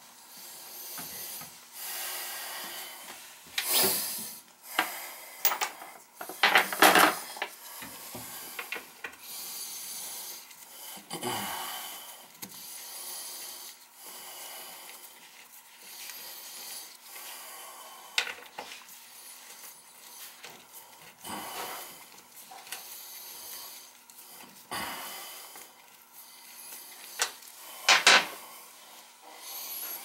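Gloved hands working at the base of a porcelain toilet around its floor bolts: intermittent scraping and rubbing with small clicks, and a few sharper knocks about a quarter of the way in and near the end.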